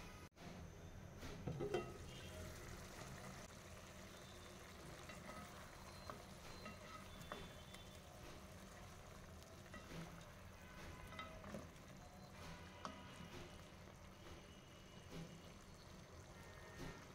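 Beef curry simmering in a pan, with faint bubbling and sizzling and scattered small pops, and a brief louder sound about a second and a half in.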